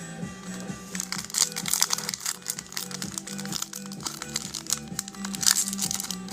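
Football card pack wrappers being torn open and crinkled by hand, a rapid crackling from about a second in, over steady background music.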